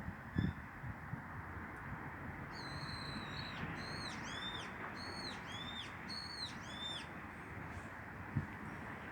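A bird calling: one longer high note, then a quick run of short arching notes, over a steady hiss. A thump just after the start and another near the end.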